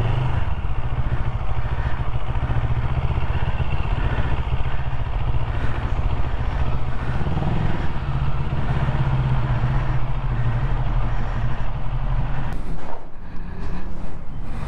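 CFMoto CLX 700 parallel-twin motorcycle engine running at low speed as the bike is ridden slowly, with a brief swell in engine note about halfway through. The engine sound stops about two seconds before the end, leaving a few clicks.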